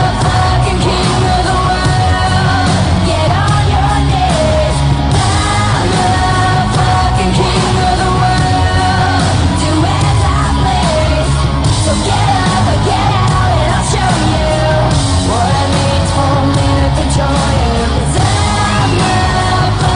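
Loud pop-rock entrance music with a sung vocal and a steady bass beat, played over the arena speakers, with some yells from the crowd.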